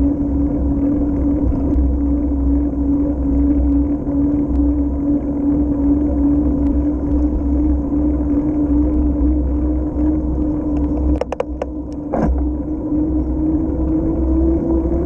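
Bicycle rolling along a paved path, heard from a camera on the bike: a steady tyre hum that edges up in pitch near the end, over low wind rumble on the microphone. A few clicks and a knock about eleven to twelve seconds in.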